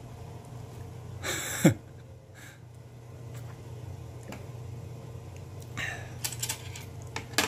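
Tableware sounds at a meal: about a second and a half in, a short loud sound that drops in pitch, then a few sharp clicks of chopsticks, spoon and glass against the plate and table around six seconds in and again near the end.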